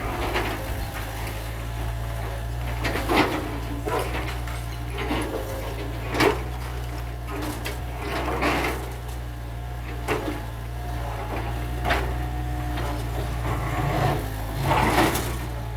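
Construction machinery's engine running steadily with a low drone, while sharp clanks and knocks come every second or two, the loudest about three, six and fifteen seconds in.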